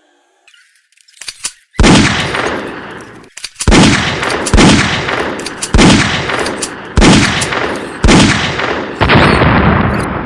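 Gunfire sound effects: about seven loud gunshot blasts spaced one to two seconds apart, each with a sharp crack and a hissing tail of about a second.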